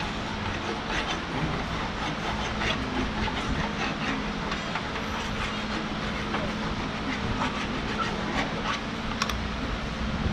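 Small irregular metallic clicks and scrapes from hand work on a tractor loader's steel arm, over a steady low hum.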